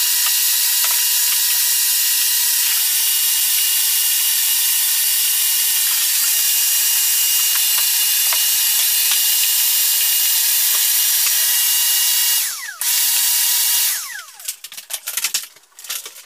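Electric power tool's motor running steadily with a high whine. About twelve seconds in it cuts out briefly and comes back, then it is switched off and winds down with a falling pitch. A few scattered knocks and clatters follow near the end.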